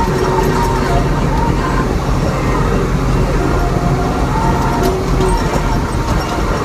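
Tractor engine running steadily, heard from inside the cab as a constant low drone.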